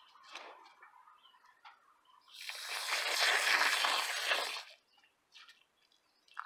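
Garden hose spray nozzle shooting a stream of water into potting soil for about two seconds, wetting it into mud. Light scraping of a hand trowel stirring the soil comes before and after.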